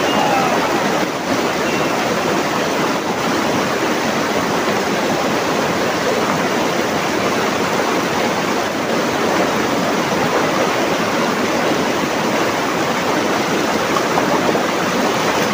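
Rocky mountain stream running in spate after heavy rain, a steady loud rush of white water pouring over and between boulders.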